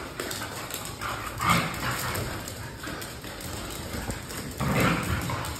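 Two dogs play-fighting and vocalizing excitedly, with louder bursts about a second and a half in and near the end.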